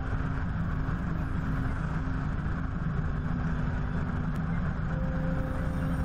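Helicopter in cruising flight heard from a GoPro mounted on its nose: a steady drone of rotor and engine mixed with wind rush on the camera, with a steady hum that gains a higher tone about five seconds in. The sound is played back at double speed.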